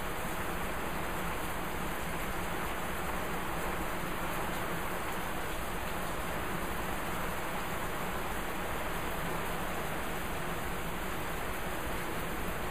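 Thunderstorm rain falling steadily, an even hiss with no breaks and no thunderclaps.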